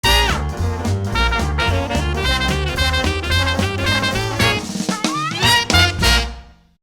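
Upbeat swing-style jazz music led by brass over a drum kit, with a rising slide about five seconds in; it fades out at the end.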